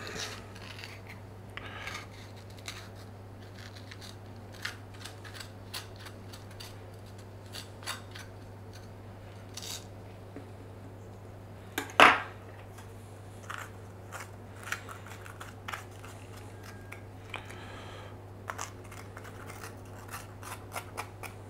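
Kitchen knife cutting into and scraping out green horn peppers on a wooden cutting board: scattered short, crisp snips and scrapes, one louder about halfway through, over a steady low hum. Near the end a spoon scrapes the seeds out of a pepper.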